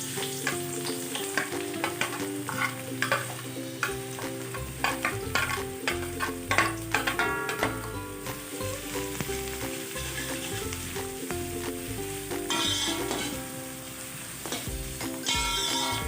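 Food sizzling as it fries in hot oil in a pan, stirred with a utensil that clicks and scrapes against the pan. Light background music plays underneath.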